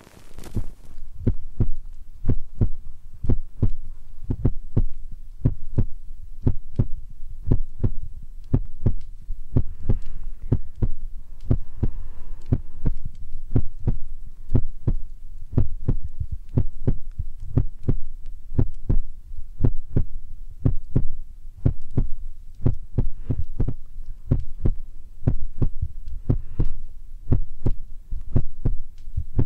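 Simulated heartbeat for ASMR: fingers tapping on the ears of a binaural microphone, making a steady run of low, soft thumps at about two to three a second.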